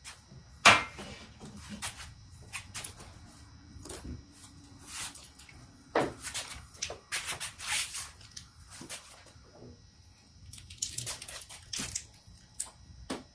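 Hands working a rubber weatherstrip seal into place: irregular clicks, knocks, rustles and squishing sounds, the sharpest a knock less than a second in.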